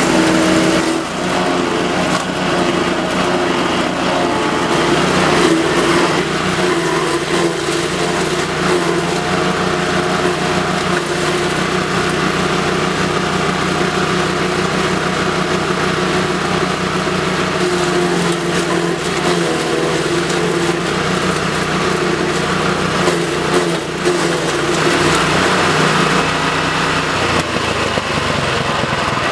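Engine of an Agrinova ZOE garden chipper running steadily, its pitch shifting a few times, notably about 17 and 27 seconds in.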